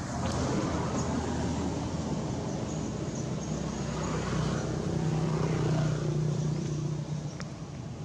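Engine noise of a passing motor, swelling from the start to a steady low hum that is loudest about six seconds in, then fading near the end.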